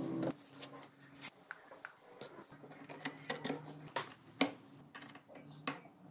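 Light metallic clicks and clinks as steel transmission gears and their bearings are handled and slid onto the gearbox shafts of a two-stroke motorcycle's aluminium crankcase, the sharpest clink about four and a half seconds in. A pitched tone cuts off just after the start.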